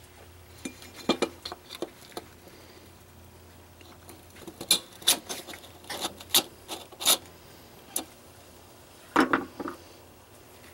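Sharp metal clicks and light scrapes of a screwdriver prying the steel retaining piece off a new wound-up recoil starter spring seated in an aluminium recoil case. The clicks come scattered at first, bunch into a run of loud clicks about halfway through, and come twice more near the end.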